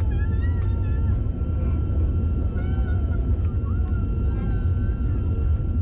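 Jet airliner cabin noise: a steady deep engine rumble with a high, steady whine over it. A high, wavering voice sounds several times on top.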